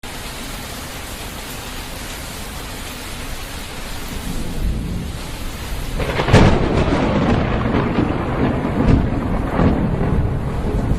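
Thunderstorm: steady rain, then thunder building as a low rumble from about four seconds in, breaking into a loud crack a little past halfway, and rolling on with several smaller crackles over the rain.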